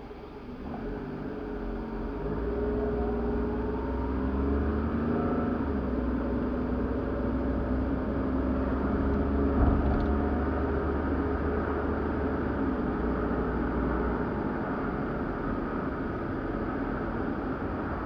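A car's engine and tyres heard from inside the cabin as the car pulls away from a stop and speeds up. The engine note rises over the first few seconds, then settles into a steady engine and road rumble. There is a single sharp knock about ten seconds in.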